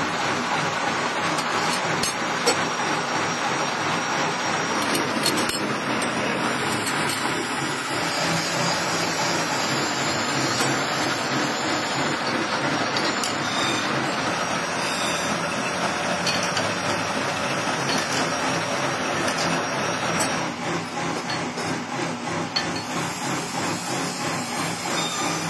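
Steady clattering noise of metalworking machinery running in a workshop, with a few sharp metallic clicks as steel sprocket blanks are handled on a stack.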